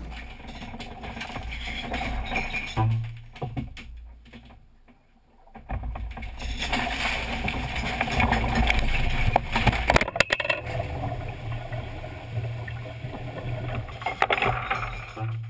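Inside a yacht's cabin as the boat is rolled over in a capsize: loose cushions and gear tumbling and knocking about amid a rushing noise. It dips quieter about five seconds in and is loudest a little later, with a cluster of sharp knocks about ten seconds in.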